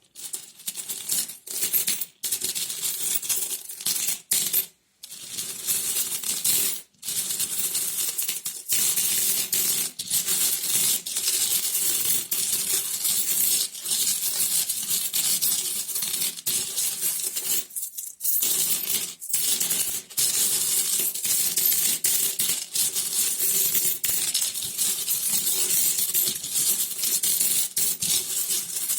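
Metal coins jingling and clinking against one another in a dense, almost continuous stream of small metallic clicks, with a few brief pauses in the first seven seconds and one about eighteen seconds in.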